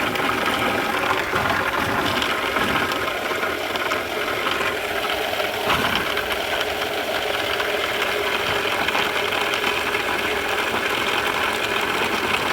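Small hydro turbine and its generator running, a steady mechanical whirr.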